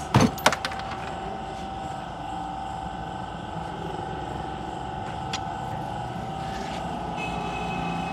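Two sharp metallic knocks about a quarter and half a second in, as the stripped-down Suzuki Mehran engine block is handled, with a lighter click later on. Under them runs a steady, even machinery hum.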